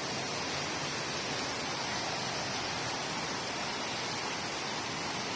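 Heavy rain pouring down steadily in a sudden thunderstorm, an even hiss with no thunder claps.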